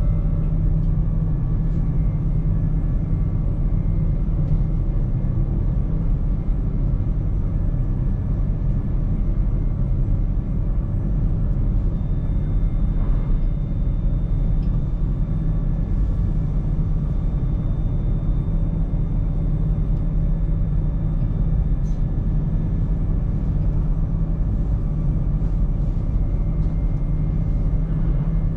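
Electric train running steadily along the track, heard from inside the driver's cab: a constant low rumble with a few faint, steady high tones.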